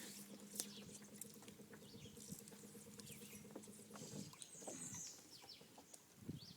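Faint steady hum that stops about four seconds in, with scattered light clicks and ticks.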